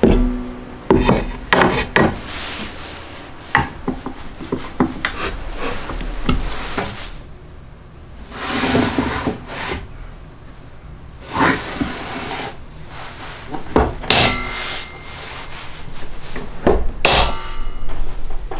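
Wooden jig parts being handled by hand: irregular sharp knocks of wood on wood, with a few longer scraping rubs as pieces slide against each other.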